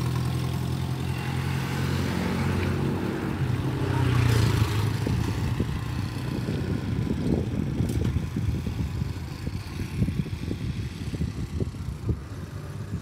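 A nearby vehicle engine hums steadily for the first few seconds and fades out. Wind then buffets the microphone with an uneven low rumble.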